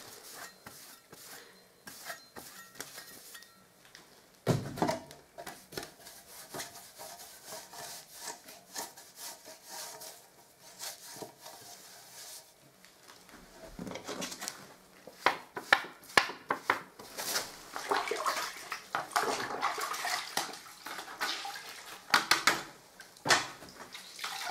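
Plastering tools being washed over a bucket of water: a damp cloth dipped and wrung out, water splashing and dripping, and a steel filling blade wiped down, with clinks and scrapes of metal. A sharp knock comes about four seconds in, and the clinks and splashes grow busier in the second half.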